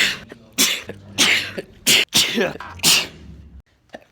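A man sneezing repeatedly, about six sharp sneezes in quick succession, roughly one every half second, trailing off near the end.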